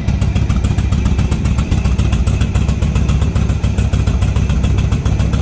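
Yamaha XVS 1100 Dragstar's air-cooled V-twin engine idling steadily, with an even, rapid pulse.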